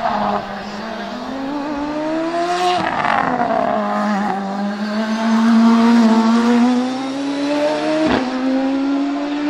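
Hillclimb sports prototype race car's engine at full throttle, its pitch climbing, dropping sharply about three seconds in as it shifts up, then climbing steadily again. A single sharp crack comes about eight seconds in.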